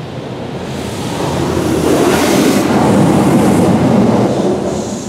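High-pressure water jets of a PDQ LaserWash 4000 touchless car wash spraying over the car, heard from inside the cabin. The rush of water builds up, is loudest for about two seconds in the middle, and fades near the end as the spray moves along the side of the car.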